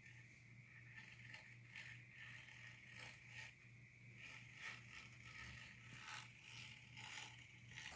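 Faint, irregular scratching and small clicks of a pocket knife trimming excess screen mesh along the edges of a patio door screen frame, over a steady low hum.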